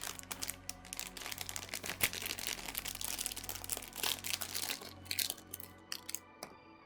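Packaging being crinkled and torn open by hand as an item is pulled out of it: a dense, continuous crackling that thins out after about five seconds, with a few last crackles near the end.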